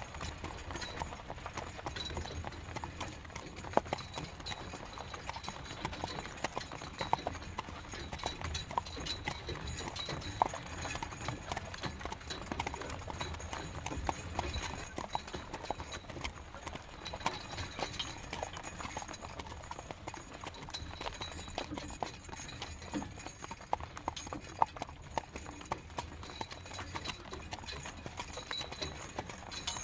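Horse's hooves clip-clopping steadily as it pulls a carriage, a continuous run of sharp hoof strikes.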